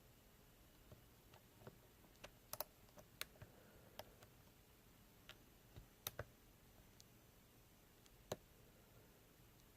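Faint, irregularly spaced sharp clicks of a lock pick working the pins of a six-pin ASSA Ruko 2 pin-tumbler core held under tension in a vise, with a few louder clicks about two and a half to three seconds in and around six seconds in.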